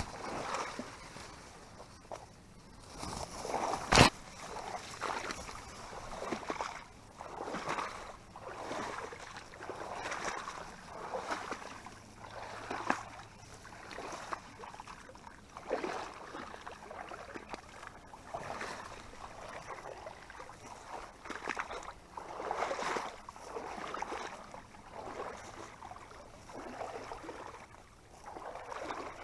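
Water sloshing and splashing in a regular rhythm of repeated strokes, about one every one and a half to two seconds, as something moves through shallow swamp water. A single sharp knock about four seconds in.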